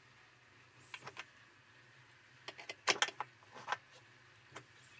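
A spanner clinking and clicking on the hub bolts of a hydro-extractor spin-dryer drum as they are given a light final tightening. The clicks come in small groups, the loudest about three seconds in.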